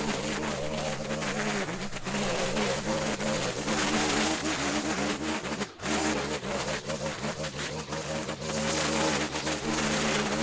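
An engine running, its pitch shifting up and down, with a brief break about six seconds in.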